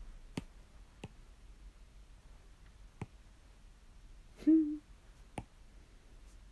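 Stylus tapping on a tablet's glass screen: about four sharp, separate taps, unevenly spaced. A short hum from a person's voice comes about two thirds of the way through.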